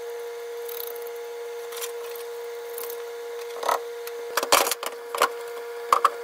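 A steel seat bracket being handled and fitted against a bucket seat's metal frame: a few sharp knocks and clanks, bunched between about three and a half and six seconds in, over a steady background hum.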